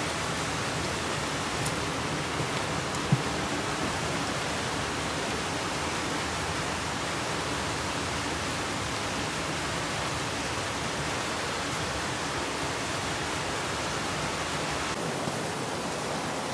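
A steady, even rushing noise, with a single short knock about three seconds in. The higher hiss drops away abruptly near the end.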